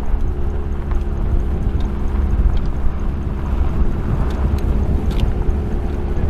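A car engine running steadily with a constant hum, with heavy wind rumble on the microphone.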